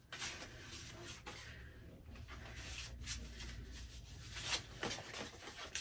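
Sheets of paper and an envelope rustling and sliding as they are handled and shuffled, in short soft bursts with a few sharper crinkles.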